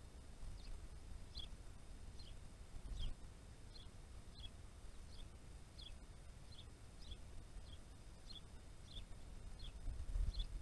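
A small songbird calling over and over, a short, high, falling note repeated about every two-thirds of a second, faint, over a low outdoor rumble.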